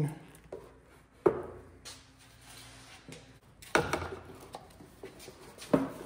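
Three clunks and knocks of car heater-box and A/C evaporator parts being handled, about two seconds apart, over a faint steady hum.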